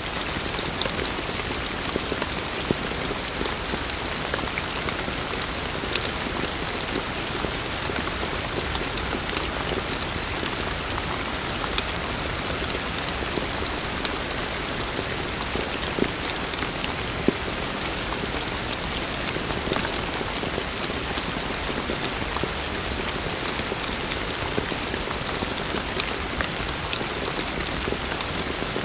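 Heavy rain falling steadily, a dense hiss with many individual drops ticking on surfaces.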